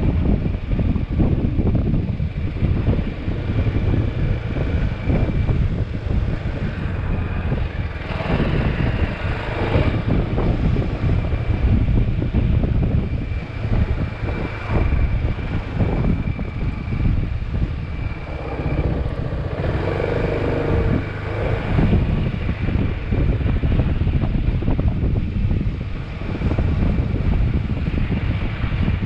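Motorcycle engine running while riding, with wind buffeting the microphone in a steady low rumble.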